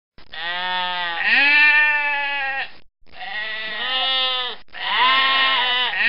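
Bleating of a farm animal: three long calls, the first and longest rising in pitch about a second in.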